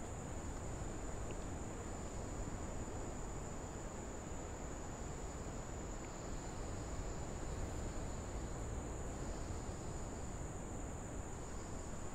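Insects trilling steadily in one continuous high-pitched tone, over a low background rumble.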